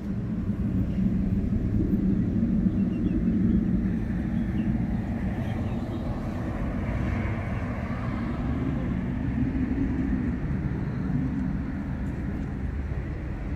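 Road traffic: cars passing, a steady mix of engine and tyre noise, loudest in the first few seconds, with a hiss that swells and fades around the middle as a car goes by.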